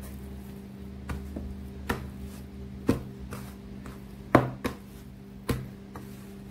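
Pizza dough being kneaded by hand on a tray: a series of irregular knocks and thumps, roughly one a second, as the dough is pushed and slapped against the tray, the loudest a little past four seconds in. A faint steady hum lies underneath.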